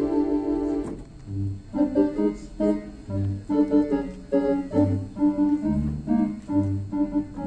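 Theatre organ playing: a held chord breaks off about a second in, then a bouncy accompaniment of low bass notes about every one and a half seconds with short, detached chords between them.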